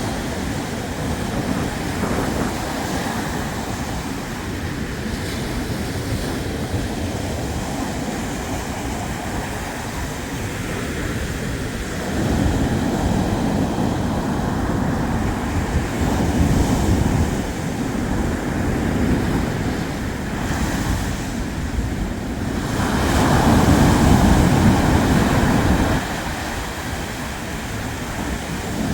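Black Sea surf: waves washing continuously onto the shore. The wash swells louder about twelve seconds in and again near the end, then drops off suddenly.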